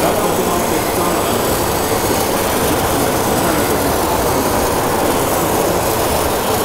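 1/14-scale RC construction machinery running: a steady, even mechanical noise with no distinct strokes or changes.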